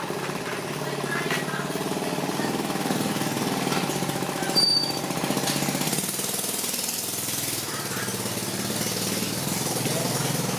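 A motorized tool running steadily with a fast, even pulsing, and a brief high squeal about halfway through.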